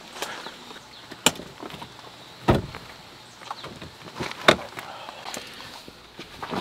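A handful of separate clunks and knocks, the loudest about two and a half and four and a half seconds in, from gear being handled in and around a car while it is set up for car camping.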